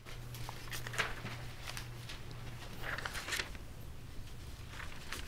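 Soft, scattered rustling and scraping of paper pages being handled, over a steady low hum.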